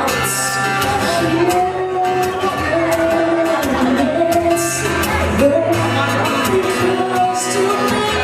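Live music: a woman singing a sustained, sliding melody over her own strummed acoustic guitar.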